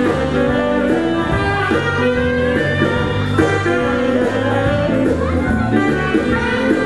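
Choir singing a Christmas song into microphones over an amplified band accompaniment with a moving bass line.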